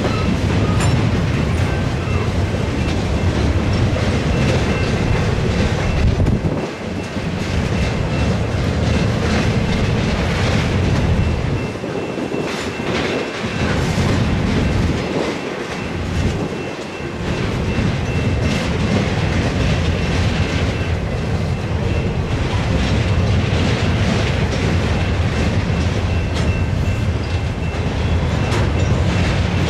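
Freight cars of a CSX continuous welded rail train rolling past: steel wheels rumbling on the rails with repeated clicks and knocks, the noise dipping briefly a few times in the middle.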